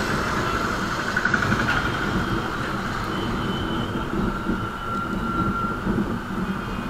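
Steady rush of riding wind over the microphone with the low, even drone of a motorcycle engine running at cruising speed.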